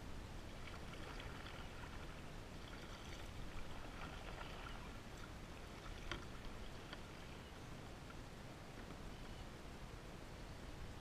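Faint water splashing and lapping around a kayak's plastic hull, with a light knock about six seconds in.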